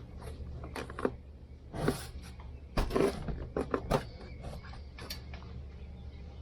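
Irregular knocks, clicks and rattles from handling a dryer vent while a starling nest is pulled out of it, over a steady low hum.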